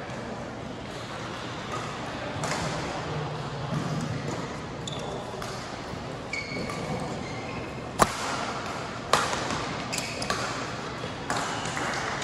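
Badminton rally: sharp racket strikes on the shuttlecock, the loudest about eight seconds in and another a second later, with short high squeaks of court shoes on the mat.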